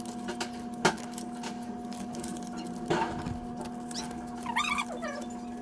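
Paper banknotes being handled and laid out, crinkling and crackling in short sharp clicks, the sharpest about a second in. A steady electrical hum runs beneath, with a dull knock at about three seconds and a brief wavering high whine near the end.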